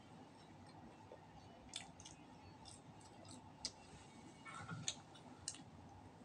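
Faint eating sounds over quiet room tone: a few scattered soft clicks and smacks from chewing and picking at roast duck by hand, the loudest about three-quarters of the way through.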